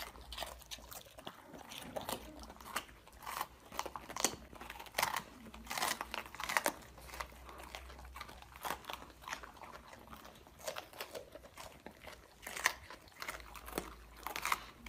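Golden retrievers, an adult and a puppy, chewing raw green bell peppers: irregular crisp crunches and bites of the pepper flesh.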